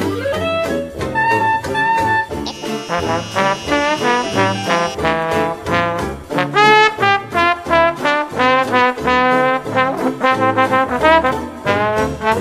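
Background jazz music led by brass horns, a run of quick melodic notes with an upward glide about six and a half seconds in.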